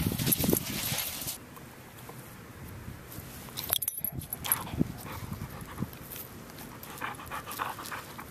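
A standard poodle panting close by, in soft breathy strokes. A loud rush of noise fills the first second and a half.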